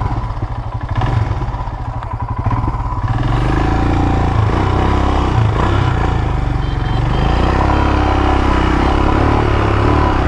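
Royal Enfield motorcycle engine ticking over with an even pulse, then pulling away about three seconds in and running louder as the bike gets under way, picked up by a microphone inside the rider's helmet.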